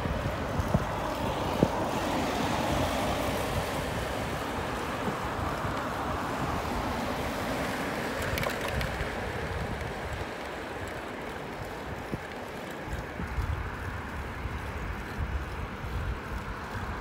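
Road traffic noise from cars passing on a city street, swelling twice as vehicles go by, with wind buffeting the microphone in low gusts that grow stronger near the end.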